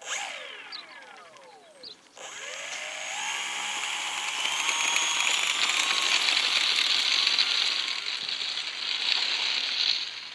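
Electric motor and propeller of a small foam RC airplane: a few short whirs falling in pitch, then about two seconds in it spins up with a rising pitch and runs at full throttle for the take-off roll. The sound is loudest midway as the plane passes close by and fades near the end as it moves away.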